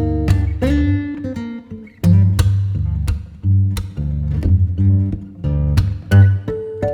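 Background music led by a strummed and plucked acoustic guitar with a steady beat.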